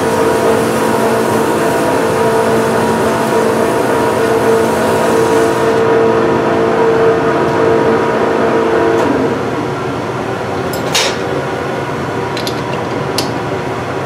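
Monarch 10EE metal lathe running with a steady whine while a parting tool cuts into a cast aluminum knob, adding a hiss that stops about six seconds in. About nine seconds in the lathe is shut off and its whine fades as it spins down, followed by a few sharp clicks.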